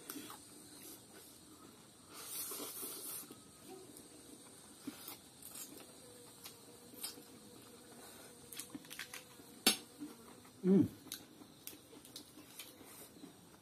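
Two people eating spicy instant noodles at close range, with a fork and chopsticks. There is a slurp about two seconds in, scattered clicks of utensils on a plate, the sharpest near the ten-second mark, and a short hum of a voice just after it.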